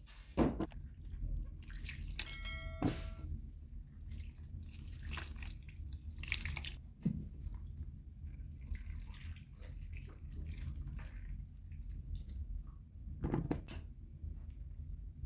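Water poured from a jug into a metal bowl while tomatoes are washed in it by hand: uneven trickling and splashing with light knocks of the tomatoes against the bowl, and a brief ringing clink near the start.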